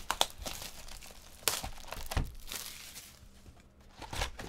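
Clear plastic shrink wrap being torn and peeled off a trading-card box, crinkling with sharp crackles, quieter for a moment about three seconds in.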